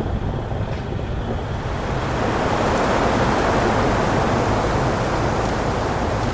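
Storm noise: a steady rush of heavy rain and wind with a low rumble underneath, swelling a little about two seconds in.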